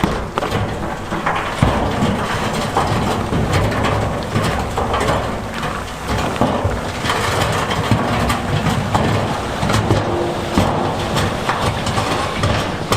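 Heavy diesel earthmoving machinery running under load while loose stone crunches and clatters, with many small knocks through it.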